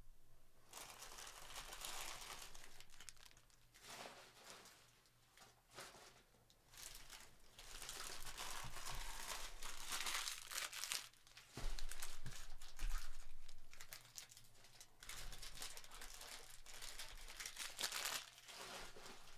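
Plastic trading-card pack wrappers crinkling and tearing as they are handled, in uneven spells, with a couple of knocks a little past halfway.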